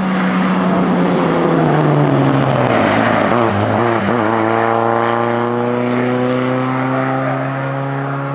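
Peugeot 205 rally car's four-cylinder engine passing close by at speed. The note drops in pitch as the car goes past, then climbs steadily as it pulls away under acceleration.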